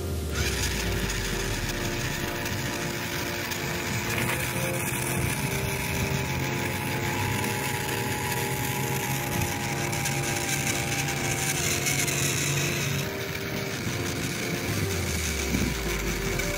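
Small DC electric motor of a homemade toy auto-rickshaw whirring steadily as the toy drives itself along.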